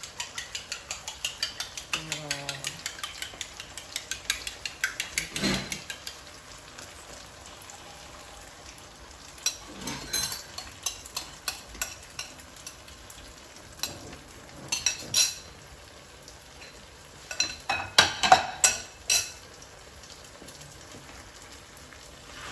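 Spatula stirring and scraping in a nonstick frying pan of sizzling pork-and-tofu sisig: a fast clatter of about five strokes a second for the first few seconds, then scattered bursts of scraping and taps over a steady frying sizzle.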